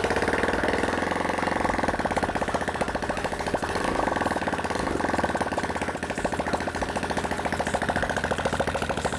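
Freshly built Kawasaki KLX 150L single-cylinder four-stroke engine, fitted with an XRM 125 four-valve head and 70 mm piston, idling steadily with no exhaust pipe fitted, so it runs loud and open with a rapid, even popping.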